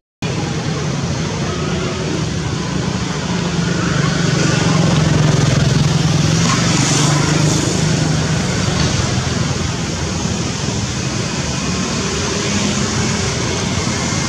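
Steady road traffic noise: a continuous low engine hum under a wash of hiss.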